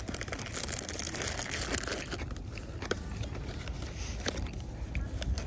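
Food packaging crinkling and tearing as it is unwrapped by hand: a dense run of crackling for about two seconds, then a few scattered crackles, over a steady low rumble.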